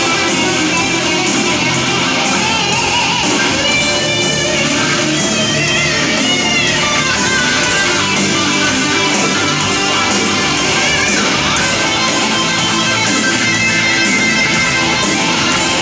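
Live metal band playing loudly through the PA: electric guitars and drums with a steady beat, heard from the audience.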